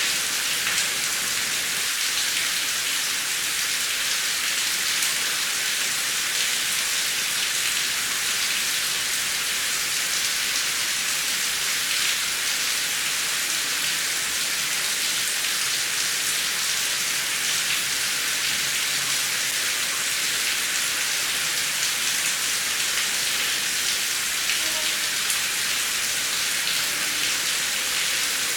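Heavy rain falling steadily: a dense, even hiss with the faint ticks of individual drops, no thunder.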